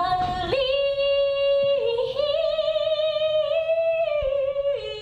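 A woman singing a long phrase of held high notes into a microphone, with vibrato. The pitch steps down, climbs back up for a long note, and drops again near the end.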